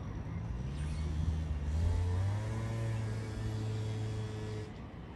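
A car's engine running as it drives past. It is loudest about two seconds in, its pitch bends, and it fades out near the end.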